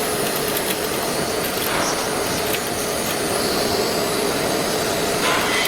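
CNC wood router running: a steady rushing machine noise with a constant hum.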